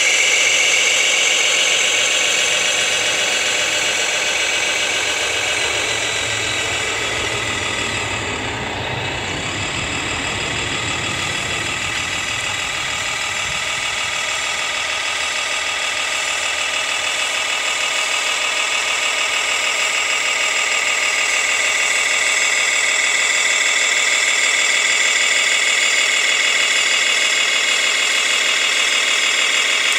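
Radio-controlled scale model Scania dump truck running, a steady high-pitched whine with a lower engine-like hum that fades out about ten seconds in.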